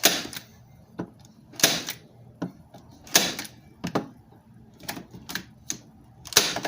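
Metal-bodied manual staple gun firing staples into wood: four loud sharp snaps about a second and a half apart, with fainter clicks of the handle and mechanism between them. The staples are driven fully in.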